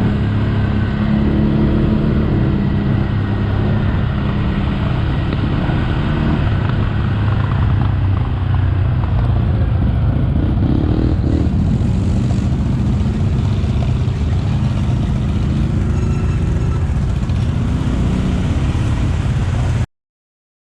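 ATV engine running under way, its engine note shifting up and down with the throttle. The sound cuts off abruptly near the end.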